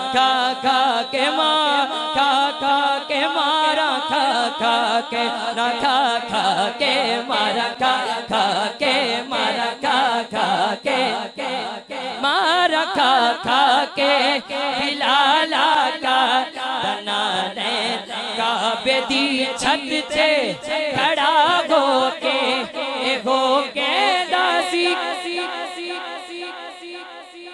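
A male voice singing a Punjabi naat through a microphone, drawn-out melodic phrases over a steady sustained backing tone and a fast regular beat. The singing falls away near the end.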